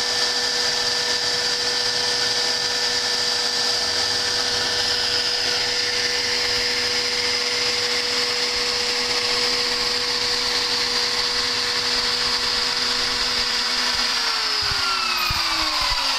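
Homemade CNC router's spindle motor running at a steady high speed with a constant whine, then switched off about 14 seconds in, its pitch falling as it spins down.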